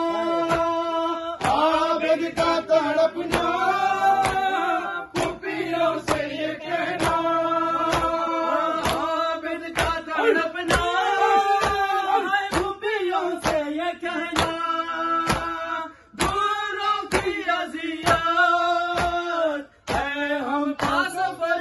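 Men singing an Urdu noha, a Shia lament, lead voices with the group joining, over a steady beat of open-handed chest slaps (matam) in unison. The singing stops for a moment twice, near the middle and near the end.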